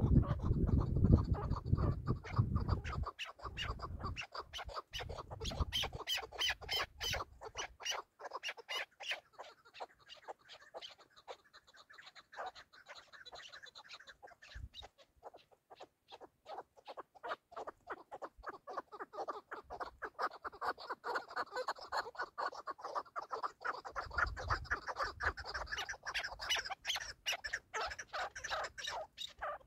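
Chukar partridge calling: a long run of short, rapidly repeated chuck notes, rising and falling in strength. A low rumble sits under the calls for the first several seconds and again near the end.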